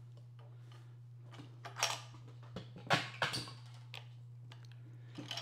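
Soft knocks and clunks as the extension table of a Juki TL2010Q sewing machine is pushed and seated against the machine, the loudest about two and three seconds in, over a steady low hum.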